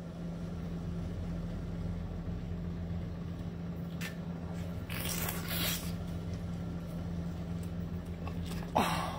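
A person biting into a whole marinated octopus: short bursts of eating sound about four seconds in, a longer one just after, and a louder one near the end, over a steady low hum.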